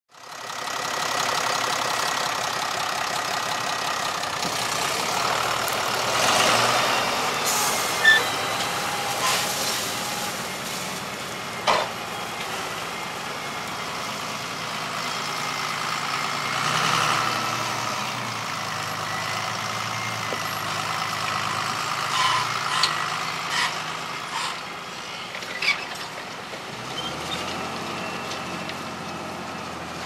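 Lamborghini tractor's diesel engine running steadily under load while it pulls a three-furrow plough, with a few sharp knocks along the way.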